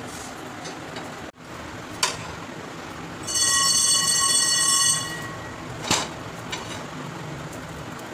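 Bread sandwich toasting in ghee on a hot tava over a gas burner on high flame, with a steady hiss. About three seconds in, a loud, high whistle-like tone sounds for under two seconds, and a couple of sharp clicks come before and after it.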